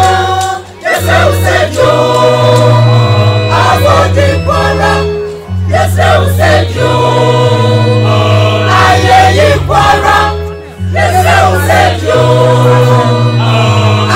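Mixed church choir singing a gospel song in parts over low sustained bass notes, the singing breaking briefly between phrases three times.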